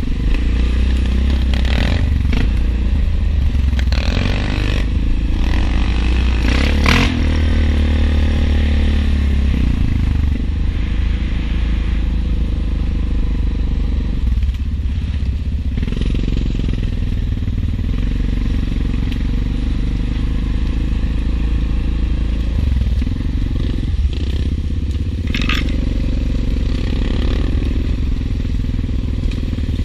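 ATV engine running at low trail speed with a steady low rumble, its pitch shifting with the throttle around seven seconds in. Dry leaves and brush crackle and scrape under the tyres, with short sharp scrapes at about seven seconds and again near the end.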